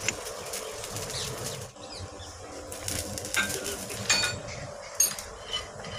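A few scattered sharp metal clinks and taps as steel parts of an oil expeller are handled, the loudest near the start and about five seconds in.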